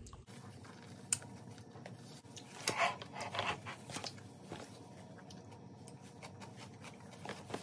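Quiet eating and handling sounds: scattered soft clicks of chewing, a sharp click about a second in, and a short rustle about three seconds in.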